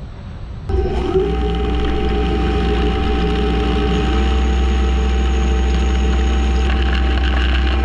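DN Solutions Puma TT2100SYYB CNC lathe running a finish boring pass in Haynes 188 superalloy with a carbide boring bar under flood coolant: a steady low hum with a constant tone and hiss above it. It comes in abruptly just under a second in.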